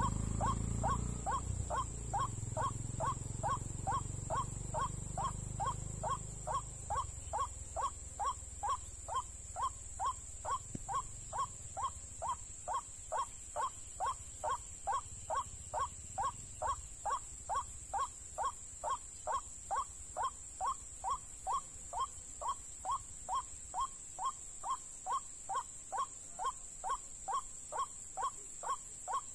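White-breasted waterhen (ruak-ruak) calling, a short falling note repeated evenly about one and a half times a second without a break. A low motorbike rumble fades out over the first few seconds.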